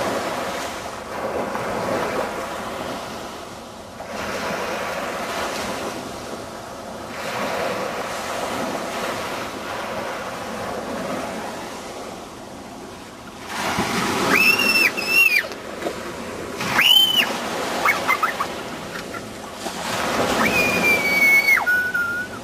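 Small sea waves washing up onto a sandy beach, the surf swelling and fading every few seconds. In the second half, high-pitched squeals from the children break in three times, the last one long and dropping in pitch at its end.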